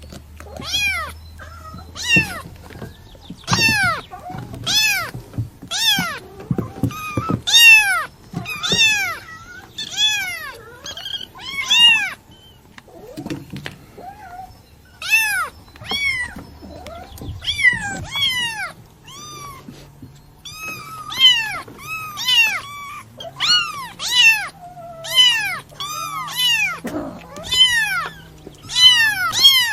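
Kitten meowing over and over: short, high-pitched meows about one a second, each rising and then falling in pitch, with a pause of a couple of seconds about halfway through.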